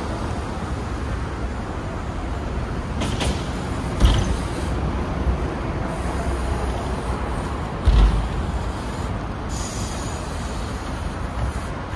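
BMX bike riding on a concrete skatepark: tyres rolling, with two heavy thumps about four and eight seconds in, over a steady low rumble of traffic.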